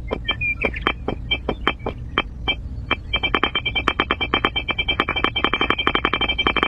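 A series of sharp, ringing clicks, a few a second at first, then a fast run of about eight a second from about three seconds in, over a steady low hum.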